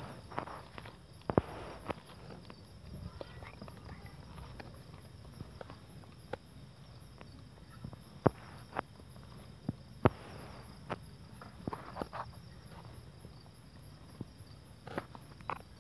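Crickets chirping steadily in a regular high pulse, with scattered sharp knocks and shuffles close by.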